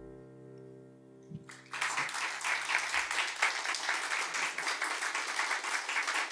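The final chord of the song fades out. About a second and a half in, the audience breaks into steady applause.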